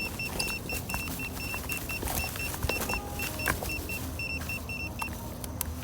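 Rapid high-pitched electronic beeping, about four beeps a second, over a low rumble; the beeping stops about five seconds in.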